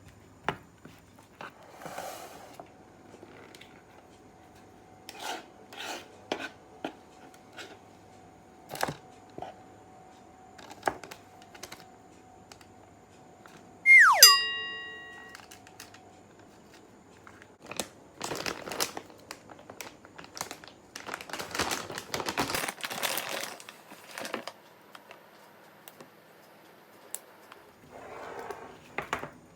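Kitchen handling sounds while baking: scattered light taps and clicks, a single sharp clang about 14 seconds in that rings on and fades over a couple of seconds, then several seconds of crinkling and tearing.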